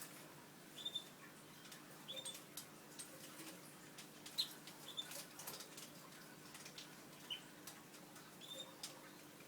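Newly hatched canary chicks peeping faintly: short, high cheeps repeating irregularly about once a second, with light scratchy clicks between them.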